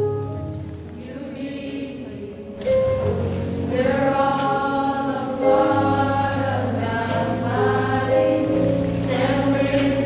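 A youth choir singing in harmony, holding long notes. It starts softly over a low sustained accompaniment, and the full choir comes in loudly about three seconds in.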